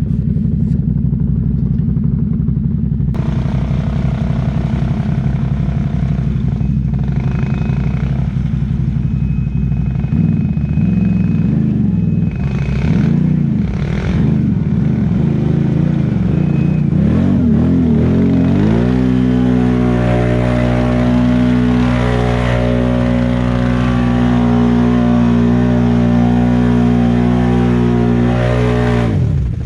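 ATV engine running under load in thick mud. It runs steady at low revs, wavers up and down in the middle, then climbs and holds at high revs for about ten seconds before dropping off near the end. The machine is making little headway.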